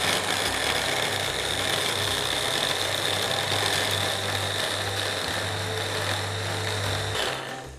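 Electric hand blender with a chopper-bowl attachment running steadily, chopping a thick mixture of pitted dates, mustard, lemon juice and oil into a sauce. The motor gives a constant high whine over a low hum and stops near the end.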